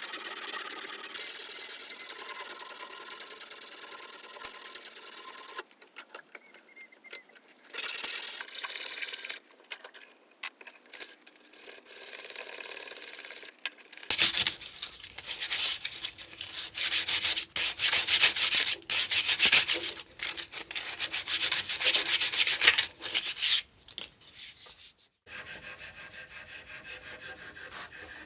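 Abrasive rubbing strokes on a tool during restoration, in several separate stretches with short pauses between them. From about halfway the strokes come in quick back-and-forth bursts.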